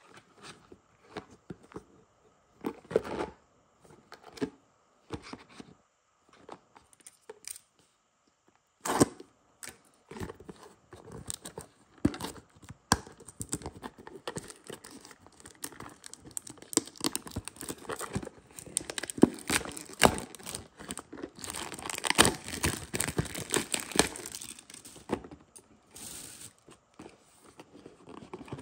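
Plastic shrink-wrap being torn and peeled off a cardboard trading-card box, crinkling and crackling. A few scattered crinkles at first, then continuous tearing and crinkling from about nine seconds in, loudest in the last third.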